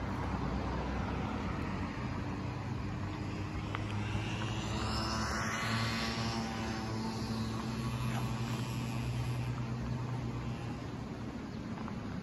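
Steady engine drone with a low hum throughout, swelling and then fading again around the middle.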